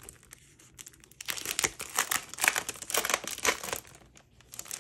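Clear plastic sleeve of a 12x12 scrapbook paper pack crinkling as a sheet is handled. The rustling is quiet at first and comes in a dense run from about a second in until near the end.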